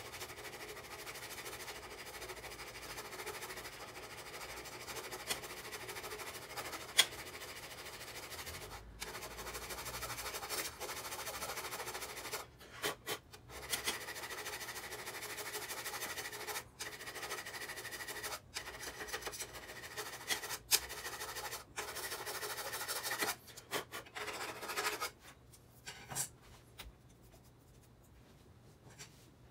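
A thin metal hand tool scraping and rubbing back and forth on a motorcycle's metal muffler, with short breaks between strokes. The scraping stops a few seconds before the end.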